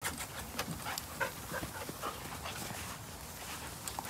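Dogs panting, with scattered light clicks throughout.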